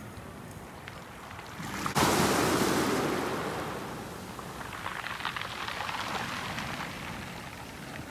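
Waves on a pebble beach: a wave breaks about two seconds in with a sudden rush of water that fades away, followed by a crackling rattle of pebbles as the water draws back over the stones.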